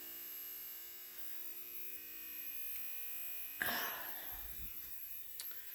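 Steady electrical hum from power equipment, with a high whine above it. A short rustle or handling noise comes about three and a half seconds in.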